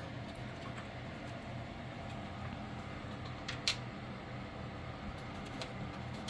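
Steady mechanical hum, like a fan running, with a few light handling ticks and one sharper click about three and a half seconds in.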